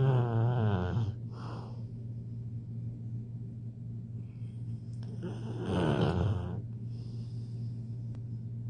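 Snoring: two loud snores about five seconds apart, the first falling in pitch, with quieter breaths between, over a steady low hum.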